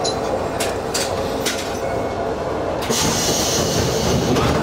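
Diesel railcar running slowly, heard from the cab: a steady rumble of engine and wheels, with a few sharp wheel clicks over rail joints early on. A steady hiss sets in about three seconds in.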